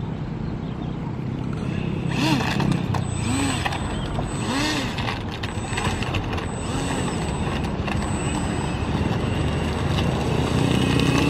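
Motor and propeller of a North Star RC seaplane blipped several times in short rising-and-falling whines, then throttled up near the end into a steady whine for takeoff from the ground, over a steady low rumble.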